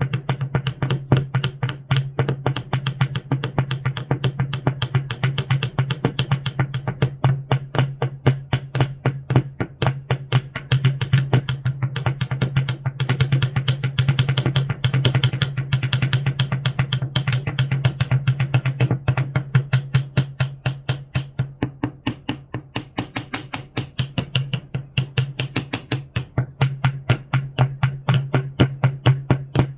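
Experimental noise music: rapid, even percussive knocks, about four to five a second, over a steady low electronic hum.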